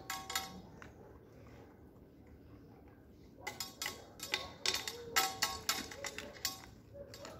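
A stainless steel food bowl clinking and rattling as Cane Corso puppies eat from it, knocking it with their muzzles: a couple of clinks at the start, then a run of quick clinks with a slight metallic ring through the second half.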